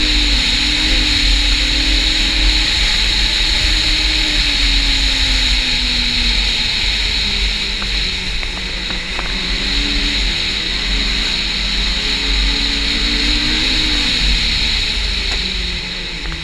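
Snowmobile engine running at speed along a trail, its pitch rising and falling slowly as the throttle eases off and opens again, with a steady high whine and a low wind rumble on the microphone.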